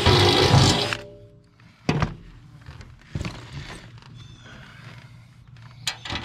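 Cordless drill running a step bit through the UTV's metal cargo bed to enlarge a bolt hole, stopping about a second in. A couple of sharp knocks follow as the drill is set down in the bed, then a few light clicks near the end.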